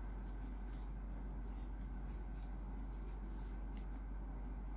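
Faint scratchy ticks and rustles of a crochet hook drawing yarn through as puff stitches are worked, over a steady low hum.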